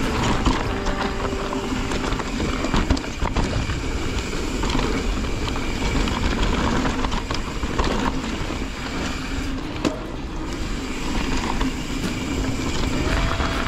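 Mountain bike ridden over a dirt trail: a steady rush of tyre and wind noise with many small knocks and rattles from the bike over rough ground.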